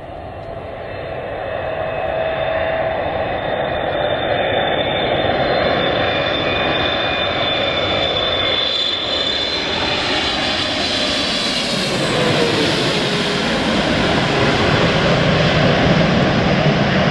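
Boeing 777-300ER's twin GE90 turbofan engines on final approach, growing louder as the airliner comes in low overhead. The engine whine drops in pitch about ten seconds in as it passes, leaving a deeper rumble as it heads away toward the runway.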